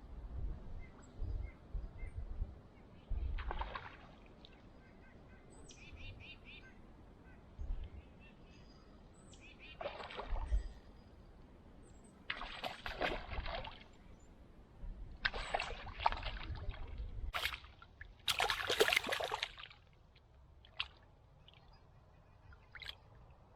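Water splashing and sloshing in about six short bursts, the loudest near the end, with faint bird chirps between them.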